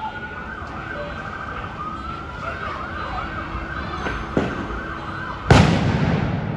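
A siren sounding in a fast up-and-down warble. A sharp crack comes about four seconds in, then a single loud blast near the end that rings on as it fades.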